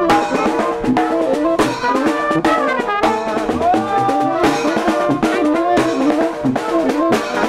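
Brass band playing a lively tune over a steady drum beat.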